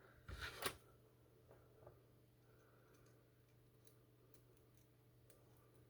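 Faint metallic clicking of a paper clip raking the pins of a Master Lock 140 padlock: a short cluster of clicks about half a second in, then only a few faint ticks.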